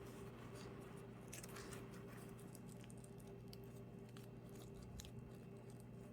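Faint, scattered short clicks and crunches over a steady low hum.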